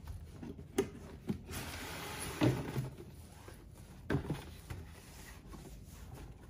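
Cardboard shoebox being opened by hand: the lid rubs as it is slid up off the box, loudest about two and a half seconds in, with a few light knocks of cardboard here and there.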